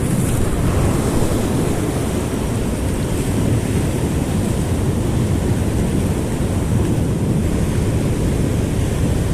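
Steady ocean surf washing in, with wind on the microphone.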